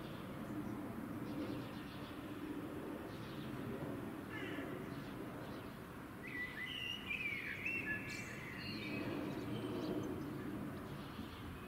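Small birds chirping, with a cluster of calls about six to eight seconds in, over a steady low outdoor rumble.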